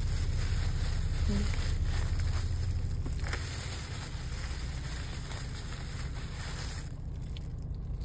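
Steady low rumble with a faint hiss above it, easing a little after about three seconds; the hiss drops away near the end.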